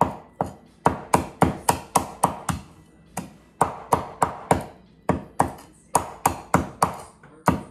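Meat cleaver chopping crispy fried pork belly (lechon kawali) on a wooden cutting board: quick, sharp chops about three to four a second, in runs broken by short pauses.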